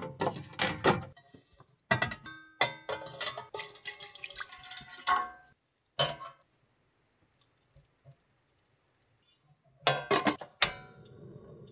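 Stainless steel pot, wire steaming rack and lid clinking and clattering as they are handled, with brief ringing tones after some strikes. There is one sharp knock about six seconds in, then a short pause, then another burst of clatter around ten seconds as the lid is handled.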